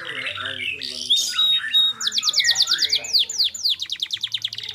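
Domestic canary singing: a varied warble of chirps and buzzy notes, then about two seconds in, fast rolling trills of quick downward-sweeping notes.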